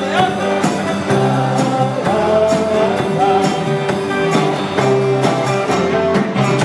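Live rock-and-roll band playing a song with singing over a steady drum beat.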